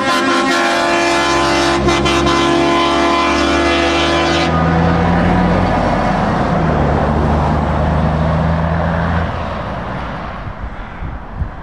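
A heavy truck's air horn blows a long steady chord over the diesel engines of trucks driving past, cutting off about four and a half seconds in. The engine drone of a passing tractor unit carries on after it and fades near the end.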